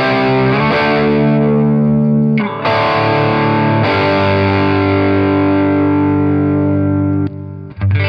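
Electric guitar played through the Kernom RIDGE analog overdrive pedal. Distorted chords are strummed and left to ring, changing a few times, with a brief break about two and a half seconds in and another near the end.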